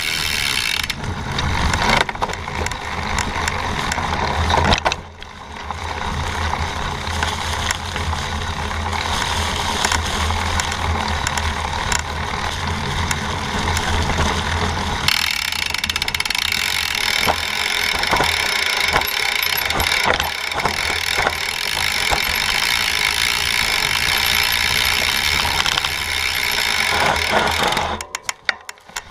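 Mountain bike ridden over dry leaves and dirt, heard from low on the frame: steady tyre noise through the leaves with the chain and frame rattling over bumps. Near the end it goes quieter, leaving scattered clicks as the bike slows.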